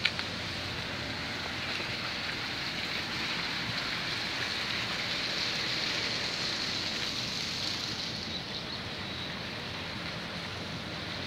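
Steady rushing and hissing of water churned by a ferry alongside the quay, over a faint low engine hum. A single sharp knock comes right at the start, and the rush eases off about eight seconds in.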